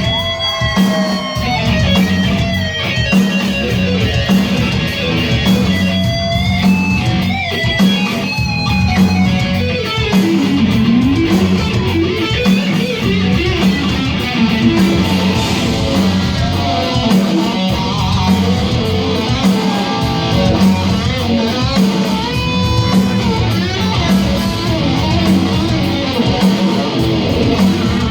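Live rock band playing an instrumental stretch: an electric guitar lead with bending notes over bass guitar and drums.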